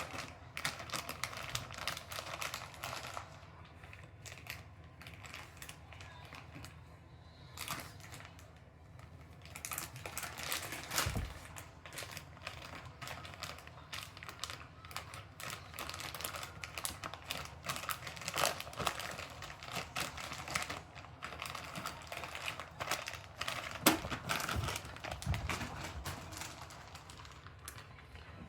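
Plastic jerky-treat bag crinkling and crackling as a Shiba Inu bites and paws at it, trying to tear it open, with a rapid, irregular patter of clicks.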